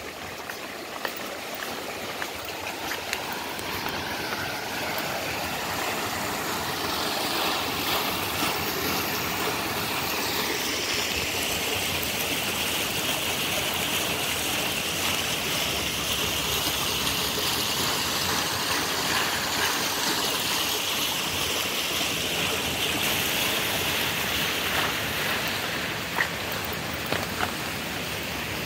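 Hot-spring water flowing steadily through the baths' channels and pools, a continuous rush that grows a little louder about six seconds in.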